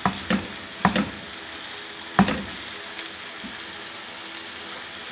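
Bitter gourd masala sizzling steadily as it fries in a nonstick pan. A spatula stirs it a few times in the first two and a half seconds, and the stroke a little over two seconds in is the loudest.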